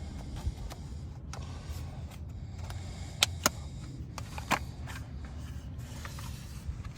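Plastic retaining tabs of a 2010 Chevy Malibu's door window-switch panel clicking and snapping loose as the panel is pried up: a few sharp clicks, two close together about three seconds in and another at four and a half, over a steady low hum.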